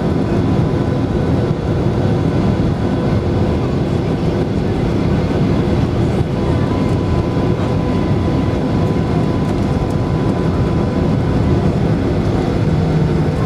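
Boeing 737-800 cabin noise while taxiing: the CFM56-7B engines running at low taxi thrust, a steady rumble with a faint high whine.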